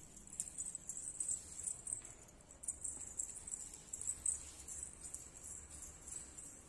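Small metal bells jingling in quick, irregular shakes.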